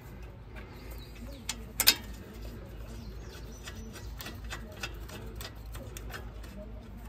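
Brake caliper being fitted back over the front rotor by hand. A quick pair of sharp knocks comes about two seconds in and is the loudest sound, followed by a few light ticks as the caliper is handled into place.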